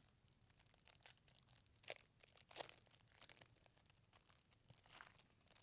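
Faint crinkling and tearing of a trading-card pack wrapper being handled and opened: a few scattered soft ticks and rustles.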